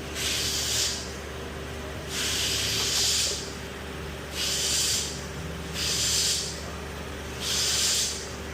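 Pressurized A/C refrigerant-and-dye can hissing in five short bursts, each about a second long, as about half an ounce is dispensed through the charging hose. A steady low engine hum runs underneath.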